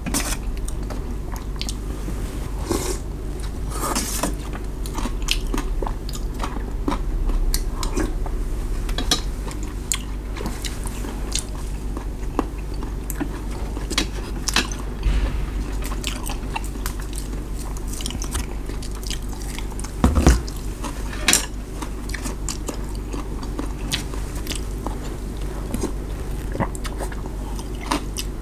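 Close-up eating sounds: chewing and biting noodle soup, with irregular clicks of chopsticks and a metal spoon against a metal bowl, a louder clatter about two-thirds of the way through. A steady low hum underneath.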